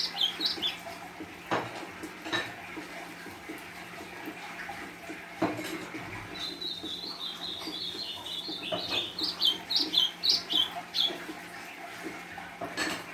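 A small songbird sings: a few high notes at the start, then a fast run of high chirping notes lasting about five seconds in the middle. Under it is a steady hiss, broken by a few sharp knocks.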